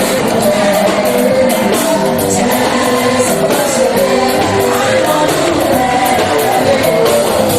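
Choir singing with band accompaniment and a steady beat.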